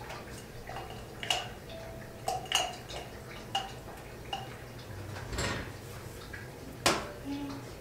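Small plastic clicks and taps as a gloved hand works a single-use speculum and a lubricant container: about six sharp, irregular clicks, with a brief soft rustle about five and a half seconds in.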